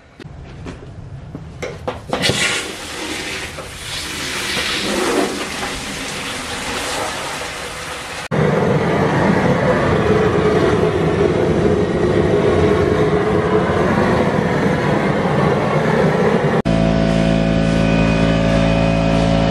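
A few knocks and water sloshing in a galvanized tub, then a loud, steady rushing noise from the propane burner heating the pot of water. The noise changes abruptly twice where the footage is cut, the last part with a steady hum in it.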